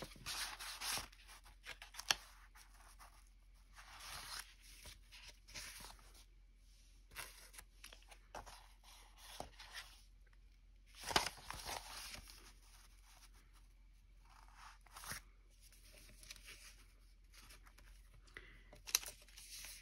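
Quiet rustling and sliding of loose paper pages as they are handled and stacked together, in short scattered bursts, with a few sharp taps about 2, 11 and 15 seconds in.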